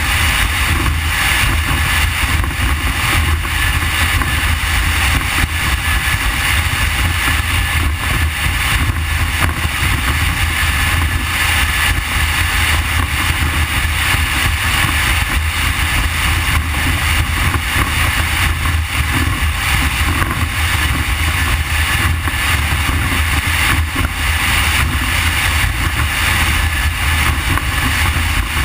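Deep Impact 399 powerboat's triple Mercury Verado 350 outboards running at speed, with a steady rush of wind buffeting the microphone and water noise. It stays loud and even, with no let-up.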